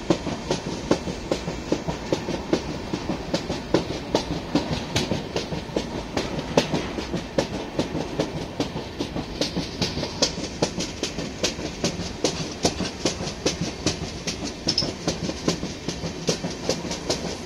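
Train running at a steady speed, its wheels clacking rapidly and fairly regularly over the rail joints under a continuous rumble.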